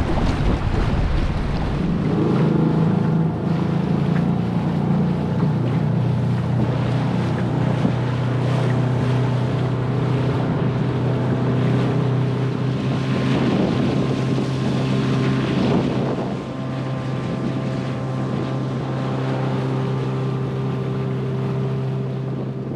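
Small outboard motor on an inflatable dinghy running steadily at low speed, an even hum. For the first couple of seconds wind buffets the microphone over choppy water, before the motor's hum takes over.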